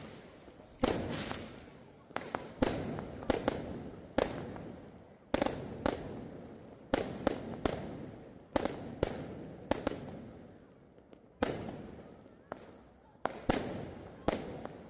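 Aerial fireworks bursting one after another, about twenty sharp bangs, some in quick clusters of two or three, each trailing off in a fading echo.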